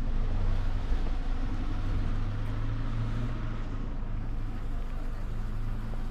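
Car driving: a steady low engine hum over road noise.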